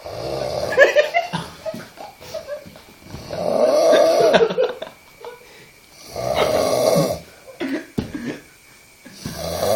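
A person snoring loudly, one rasping snore roughly every three seconds, with quiet breaths between.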